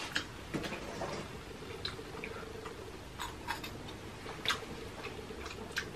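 Quiet, scattered clicks and ticks of people eating cup noodles at a table, over a faint steady hum.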